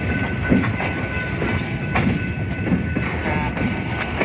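Freight train's covered hopper car rolling past over a grade crossing: a steady rumble of steel wheels on rail, with irregular clacks as the wheels cross the rail joints.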